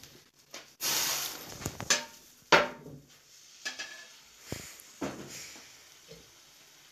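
Frying pan and china plate clattering as an omelette is flipped onto the plate and slid back into the pan: a brief hiss just under a second in, a sharp clack about two and a half seconds in, then a few lighter knocks.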